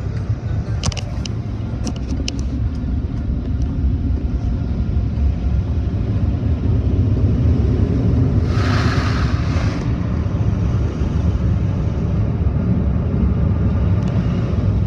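Automatic tunnel car wash machinery heard from inside the car's cabin: a steady deep rumble of water and wash equipment working over the car. About a second in come a few sharp ticks of spray hitting the glass, and about eight and a half seconds in a hissing gush of spray lasts a second or so.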